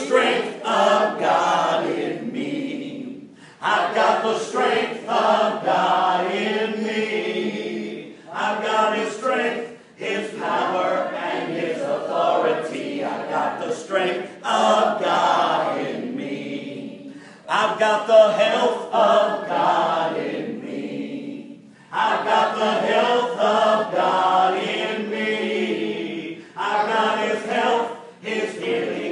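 A congregation singing a short worship chorus together without instruments, phrase after phrase of about three to four seconds with brief breaks between them.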